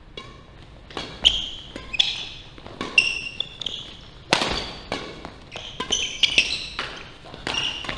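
Badminton doubles rally: rackets hitting the shuttlecock in a string of sharp cracks, starting about a second in and loudest about midway, with sneakers squeaking on the wooden court floor between shots.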